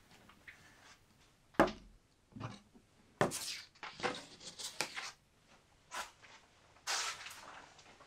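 Handling noises of gear on a wooden table: a sharp knock about one and a half seconds in, the loudest sound, then scattered taps, scrapes and rustling, with a short scraping shuffle near the end as someone gets up and moves away from the table.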